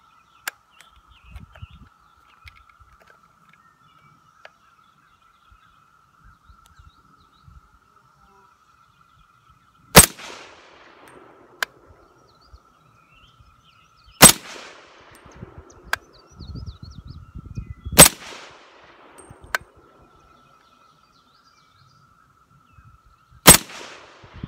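M1 Carbine (.30 Carbine) firing four slow, aimed single shots several seconds apart, each a sharp crack with a brief fading tail, and a lighter click following each of the first three. These are sighting-in shots to zero the rifle at 25 yards.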